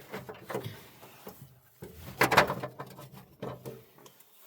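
Clunks and rattles of hands working on a battery ground cable clamp, with a loud cluster of knocks about two seconds in.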